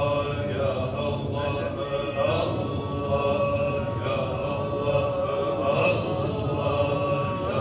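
A man's voice chanting an Islamic prayer recitation in long, drawn-out melodic phrases.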